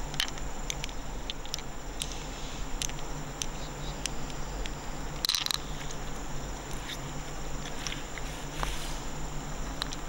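Scattered light clicks and taps over a faint steady hiss, with a short scraping rasp about five seconds in.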